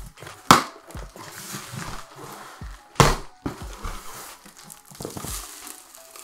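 Cardboard shipping box being opened by hand, its flaps pulled back and rustling, with two sharp knocks, about half a second in and again about three seconds in.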